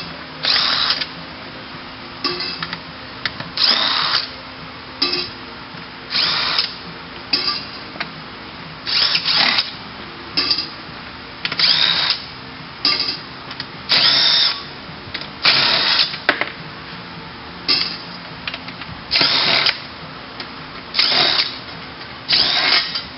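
Cordless drill/driver spinning out the bolts of a CVT transmission's side cover in short bursts, about sixteen of them spaced every one to two seconds. Each burst is a brief whirring spin-up that stops as the bolt comes free.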